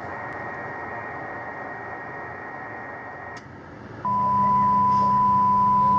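HF amateur radio transceiver receiving: steady band hiss with a faint steady whistle. About four seconds in, a much louder steady whistle-like tone starts suddenly, with a low hum under it, and holds.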